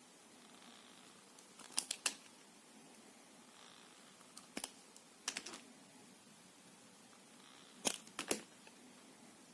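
Knife cutting soft soap: sharp clicks in close pairs every two to three seconds.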